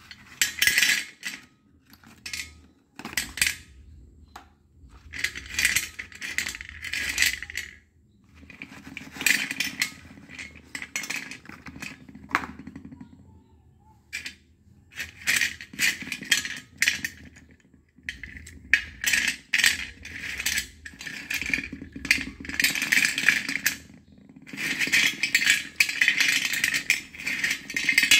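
A heap of slate pencils being stirred, lifted and dropped by hand on a metal plate: the sticks clatter and clink against each other and the plate in repeated bursts a second to three seconds long, with short pauses between.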